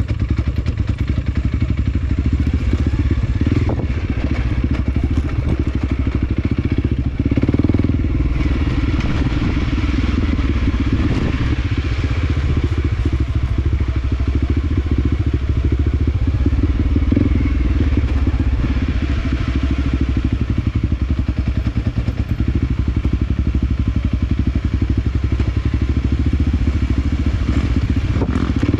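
Trail motorcycle engine running steadily under way, with scattered knocks and clatter from riding over a rough dirt track.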